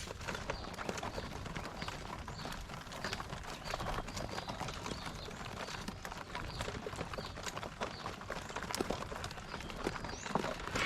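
A flock of farmed quail: a constant irregular clatter of small taps and clicks, with short high peeps repeating through it.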